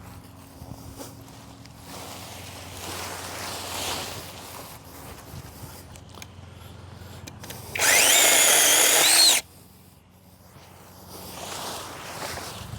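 Brushless motor of a DocSmart 8-inch cordless chainsaw running in one short burst of about a second and a half, a high whine that rises slightly and then drops as the trigger is released. Around it there is quieter rustling and handling of branches.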